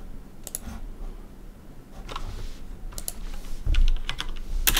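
Typing on a computer keyboard: a few scattered keystrokes at first, then a quicker run of keys near the end.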